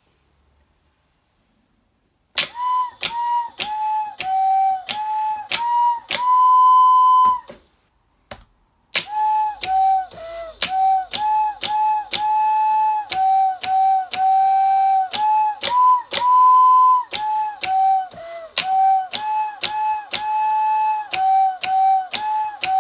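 A fan-blown recorder fingered by solenoids plays a tune of short, steady notes under MIDI control, a few notes a second. Each note starts with a sharp click from the solenoids and relays. The tune starts about two and a half seconds in and pauses briefly about a third of the way through.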